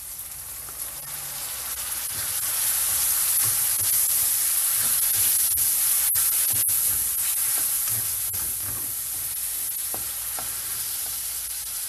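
Pork pieces frying in hot oil in a metal wok with sautéed tomato and onion, a steady sizzle that swells a couple of seconds in. A spatula stirs and scrapes through it, with a few sharp clicks.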